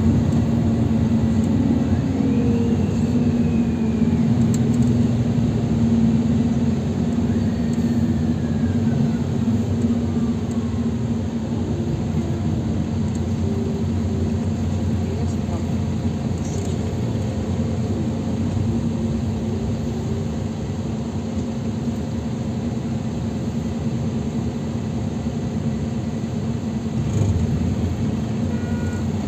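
Cabin sound of a NEFAZ 5299 city bus with a Cummins ISBe 270B diesel engine, heard from inside: the engine runs with a steady low drone over road rumble.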